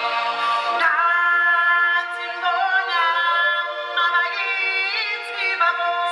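Unaccompanied singing from a stage musical: voices holding long notes that slide from one pitch to the next, with no instruments beneath.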